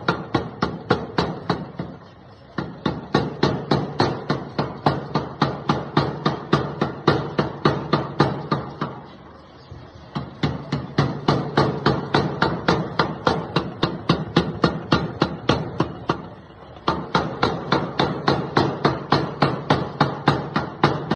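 A 15 kg mechanical power hammer striking in a fast, even rhythm of about three to four blows a second, with its motor running underneath. The hammering stops briefly three times and starts again.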